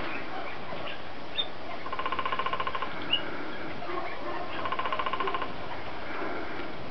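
An animal call: a rapid rattling trill about a second long, repeated about every three seconds, with two short high chirps in between.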